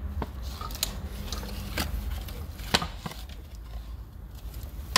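Scattered sharp plastic clicks and knocks as an engine computer module in its plastic cover is handled and tried against its mounting, the loudest knock a little under three seconds in, over a steady low hum.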